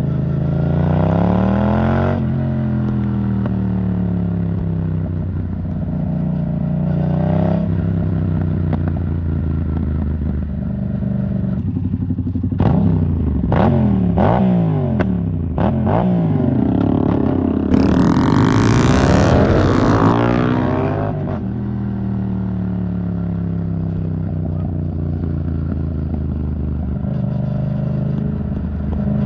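Yamaha MT-07 parallel-twin engine through an Arrow Thunder titanium exhaust while riding. It accelerates at the start and eases off, revs up again, then rises and falls quickly several times with sharp cracks. A hard rev about two-thirds through is the loudest part, after which it slows and settles to a steady cruise.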